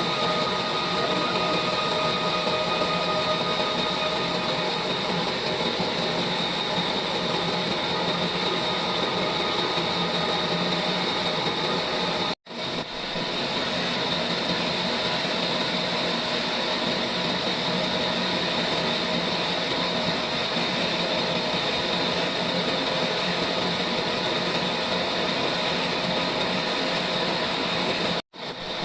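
Sawmill saw running steadily with a constant mechanical whine and rush, briefly cutting out twice, once about twelve seconds in and again near the end.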